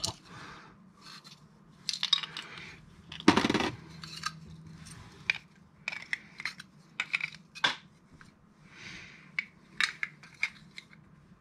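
Hands unpacking small items from a parcel: a run of light clicks and clinks with brief bursts of handling noise, the loudest about three and a half seconds in.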